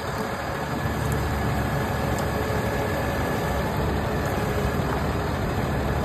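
Heavy diesel machinery running steadily, the engines of a boom crane truck and a compact track loader, giving an even low rumble with no revving.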